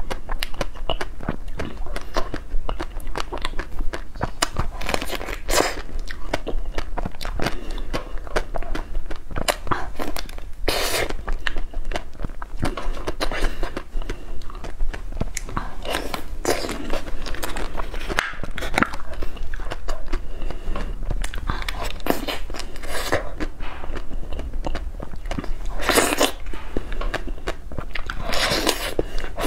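Close-miked eating sounds of ice cream: dense sharp mouth clicks, with longer bites and chews every few seconds.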